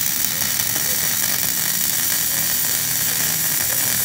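HTP MIG 2400 welder's arc crackling steadily as a bead is run on a pipe joint.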